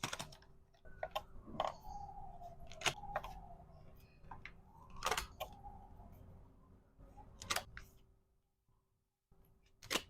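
Sharp clicks and taps of small hard plastic items being handled and set down during packing, about every two seconds. Between them there is light rubbing with squeaky gliding tones.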